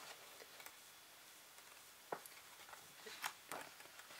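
Near silence with a few faint clicks and light rustles from a hardcover art book being handled.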